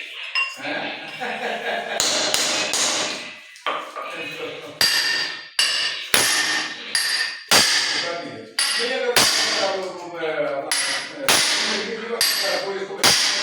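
Hammer strikes ringing on metal, a steady series of sharp blows about every 0.7 s from about a third of the way in: chiselling out an old floor drain set in the floor. A voice is heard under the blows.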